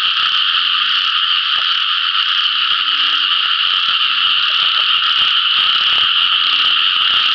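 Dense, steady chorus of many frogs calling at once, with a few short low calls standing out now and then.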